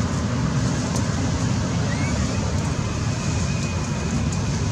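Steady low rumbling background noise, with a short faint rising chirp about two seconds in.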